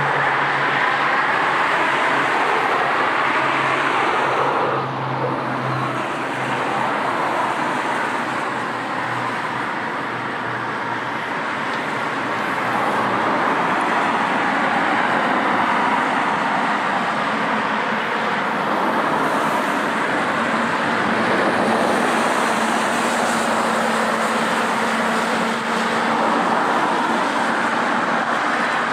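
Steady, continuous engine noise with a faint low hum, at an even level with only small dips.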